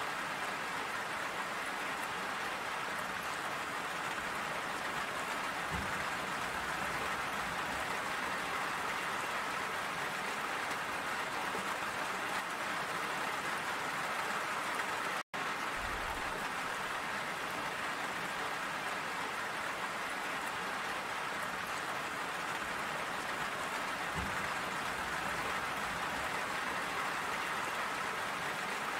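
Steady rainfall, an even hiss of drops that holds a constant level. About halfway through it drops out for an instant, like an edit splice, then resumes unchanged.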